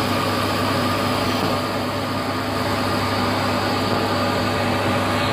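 Metal lathe running steadily, its cutting tool in the bore of an aluminium truck brake pedal valve body, re-cutting the leaking valve seat. A constant hum with a higher steady whine over it, which stops abruptly right at the end.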